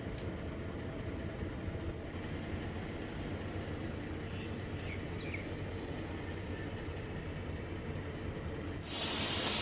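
Steady low mechanical rumble with a few faint clicks, then near the end a loud, steady hiss of air or spray starts abruptly.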